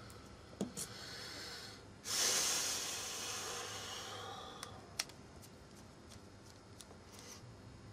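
Small metal clicks of a precision screwdriver and screws as a folding knife is put back together, and about two seconds in a sudden loud breathy hiss that fades away over about two and a half seconds.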